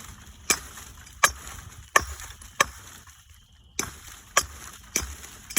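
A steady series of sharp chopping strikes, seven of them, about one every two-thirds of a second, with a longer pause near the middle.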